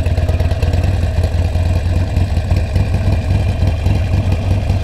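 Harley-Davidson Sportster 1200's air-cooled V-twin running steadily at low revs, with a fast, even pulse and no revving.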